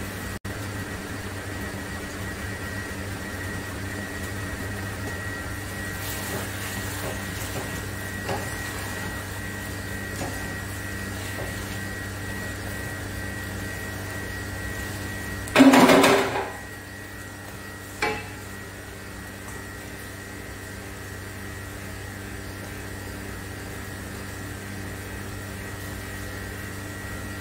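Steady electrical hum with a thin high whine throughout. About halfway through, a plastic spatula scrapes and clatters loudly in the non-stick frying pan, then gives one sharp knock about two seconds later.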